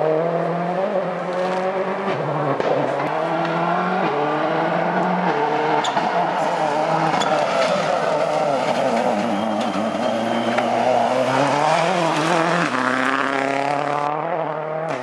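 Rally car engine revving hard on the stage, the pitch climbing and dropping in steps as it shifts gears, with a stretch of wavering revs through a corner in the middle.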